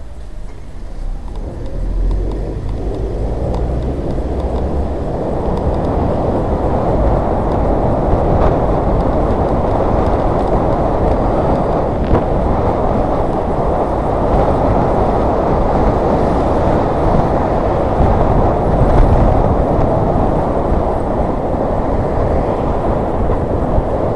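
Wind and road noise rushing over the microphone while riding, building up over the first few seconds as speed picks up, then holding steady with low rumbling gusts.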